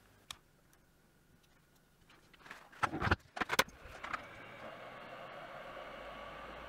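Near silence, then a few clicks and knocks about three seconds in. A hot-air rework station then starts blowing a steady hiss onto the circuit board to heat a stepper motor driver chip for desoldering, and a low hum joins near the end.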